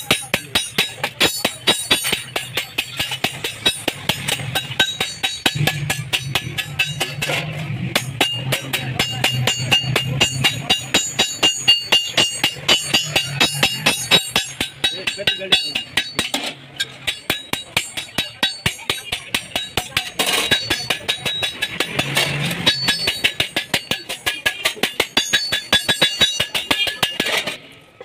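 Sheet metal being hammered by hand with rapid, even blows; each strike leaves the metal ringing.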